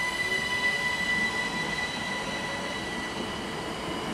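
ÖBB Cityjet electric train pulling away, its traction motors whining slowly up in pitch under a steady high whistle and a rolling rumble.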